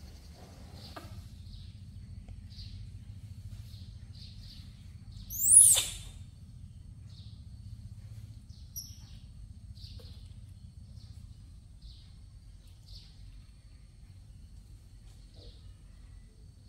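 A single loud, shrill animal call about five seconds in, sweeping up and then down in pitch, over faint short chirps that repeat roughly once a second and a low steady hum.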